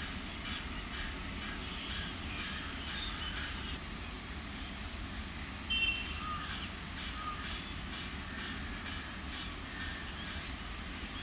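Birds chirping and calling, many short calls one after another, over a steady low rumble; one brief, louder call about six seconds in.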